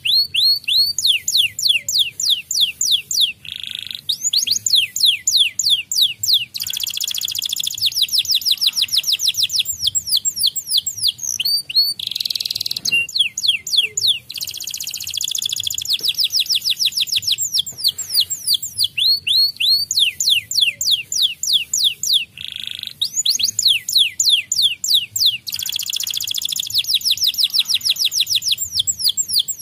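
Domestic canary singing a long, unbroken song: fast rolls of the same falling whistled note repeated many times a second, alternating with harsher buzzy trills.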